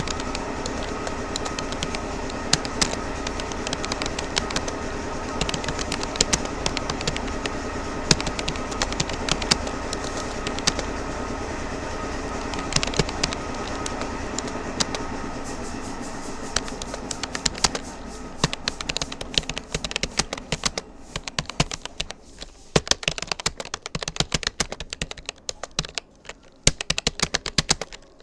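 Rapoo computer keyboard being typed on at a steady pace, a fast irregular stream of key clicks. A steady background hum underlies the typing and fades away about two-thirds of the way through.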